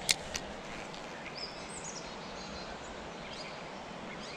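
Birds chirping with short high notes over a steady hiss of outdoor background noise by a creek. Two sharp clicks come just after the start.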